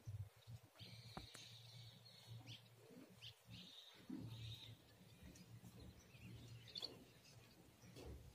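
Near silence: faint outdoor ambience with a few faint, high bird chirps.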